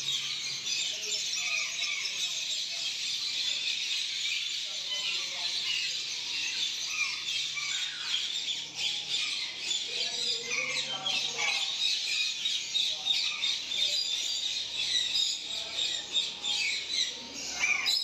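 Many caged parrots chattering and squawking together: a dense, unbroken din of high calls.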